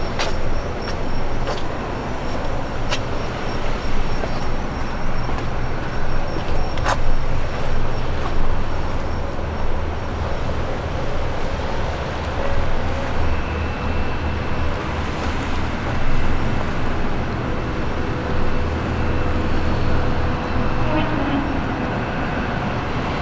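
A steady low engine hum under a wash of outdoor noise, with voices in the background and a few sharp clicks.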